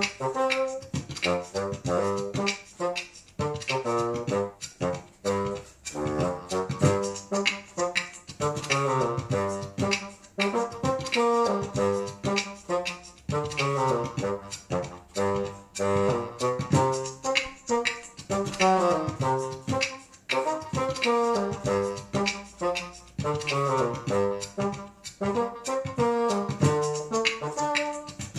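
Bassoon playing a funk groove of short, detached notes, built up from looped layers of itself so that several bassoon lines sound at once in a steady repeating rhythm.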